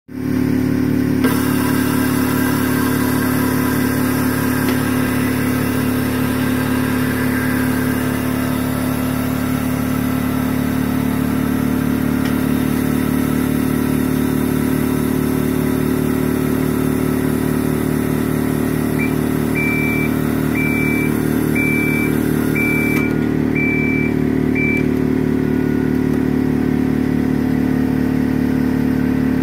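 Disco DSC 141 spinner machine running: a steady motor hum with a fast pulsing under it, and a hiss that comes in about a second in and stops about two-thirds of the way through. Shortly before the hiss stops, a run of about seven short high beeps.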